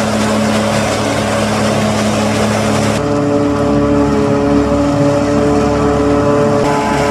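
John Deere 5400 self-propelled forage harvester running under load while chopping maize, together with the tractor pulling the trailer alongside: a loud, steady drone of engines and chopping with a constant hum, whose pitch changes about three seconds in.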